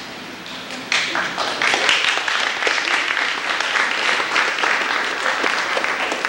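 Audience applauding, many hands clapping; the applause grows louder about a second in and keeps up steadily.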